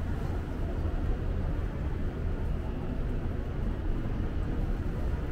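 Steady low rumble and hum of railway-station ambience, with no single event standing out.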